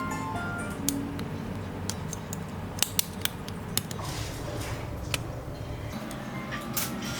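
Irregular sharp metallic clicks and taps from small hand tools, a few seconds apart, over a steady low hum.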